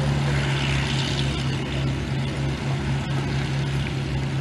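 Spitfire piston engines, Rolls-Royce Merlin V12s, running at low power on the ground as the fighters idle and begin to taxi: a steady low drone.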